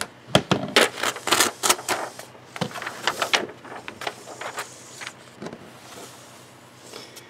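Sheets of loose-leaf graph paper rustling and sliding as they are handled and moved on a desk, a quick run of crackles and swishes mostly in the first half, thinning out after.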